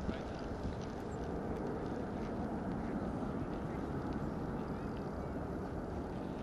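Distant, steady low rumble of the four jet engines of a Boeing 747 Shuttle Carrier Aircraft flying overhead.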